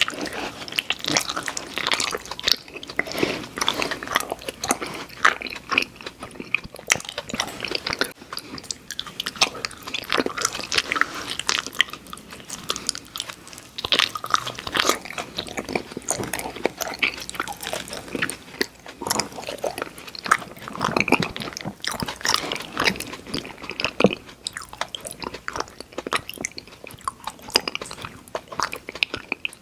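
Close-miked chewing and biting of candy sweets, with continuous irregular wet clicks and crackles of the mouth.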